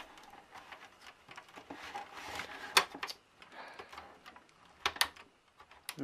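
Plastic clicks and soft scraping from a Sky HD set-top box's casing being lifted and prised apart by hand: a few sharp clicks, the loudest about halfway through, with rubbing between.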